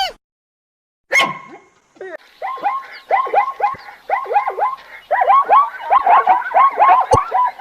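Several dogs barking and yipping rapidly, their short high barks overlapping and growing busier after a single opening bark. A sharp click comes near the end.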